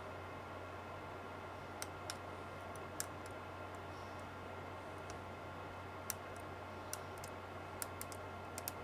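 Scattered small sharp clicks, about a dozen and irregularly spaced, from tools and a circuit board being handled as the board is worked loose, over a steady low hum.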